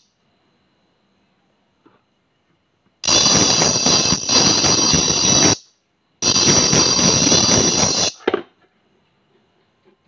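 Music played through a tweeter behind a frequency divider, thin and shrill with most of its sound high up. It comes in twice, for about two and a half seconds and then about two seconds, each time starting and stopping abruptly.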